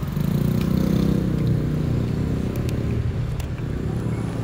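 A motor vehicle's engine running close by with a low hum, loudest in the first couple of seconds and then slowly fading.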